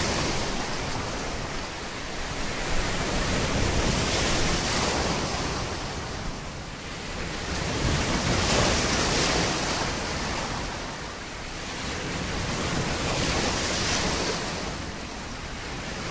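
Ocean surf breaking and washing up a sandy beach. It swells and fades in slow surges every four to five seconds.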